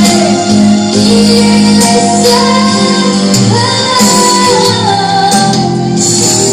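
A girl singing a pop ballad into a microphone over a backing track, holding long notes that step up in pitch partway through.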